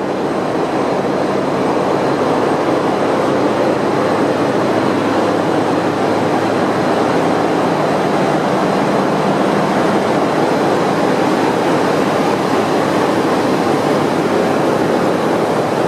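Steady, loud din of running machinery in a container ship's engine room, a dense noise with a faint low hum beneath it.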